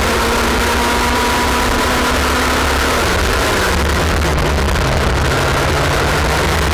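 IAME X30 125cc two-stroke kart engine running at racing speed, heard from a camera on the kart under a steady rush of wind noise. The engine note steps down about three seconds in.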